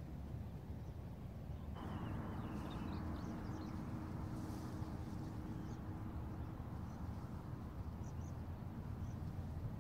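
Steady low rumble of wind on the microphone, a little louder about two seconds in, with faint scattered calls of a passing flock of northern lapwings.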